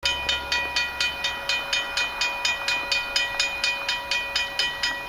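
Railway crossing warning bell ringing in a quick, even rhythm of about four strokes a second, each stroke ringing on. It signals that the crossing has activated for an approaching train, just before the gates come down.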